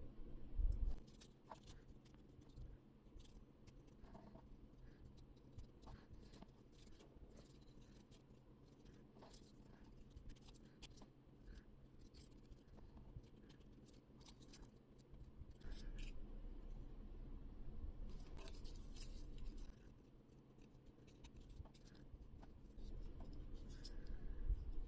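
Faint, scattered clicks and scratchy paper sounds of card pieces being handled and fitted together for a 3D paper-art puzzle, with a low rumble of handling coming and going in a couple of stretches.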